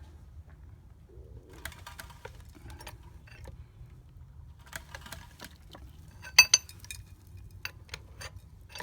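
Light metallic clinks and knocks, scattered and irregular, the loudest a sharp ringing double clink about six and a half seconds in, over a low steady rumble.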